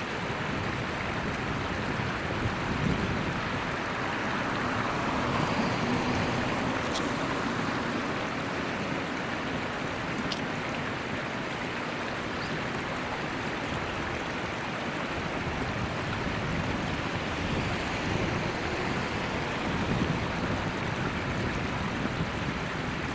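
Freight train's container wagons rolling past on the track above: a steady rumble of wheels on rails.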